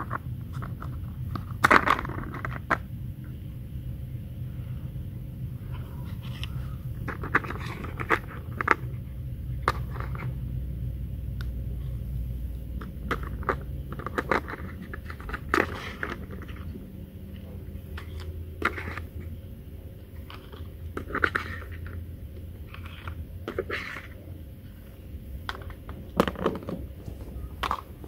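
Plastic toy pizza slices and a plastic spatula clicking and scraping against a plastic toy pan as the slices are lifted off, with scattered sharp clicks and short crackles.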